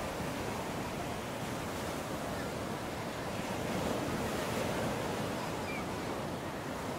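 Steady wash of sea surf breaking on the shore, swelling and easing slightly, with wind on the microphone.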